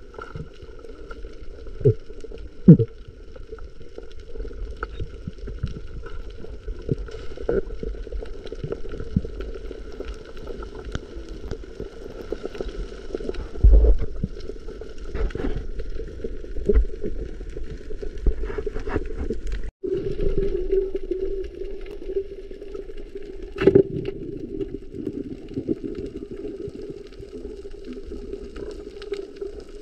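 Muffled underwater sound picked up by a camera below the surface: a steady low hum with a constant higher tone, and a few sharp knocks, the loudest about three seconds in.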